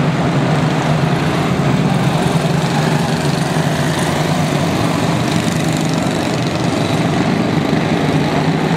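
A pack of quarter midget race cars running together, their small single-cylinder Honda four-stroke engines blending into one steady, continuous drone.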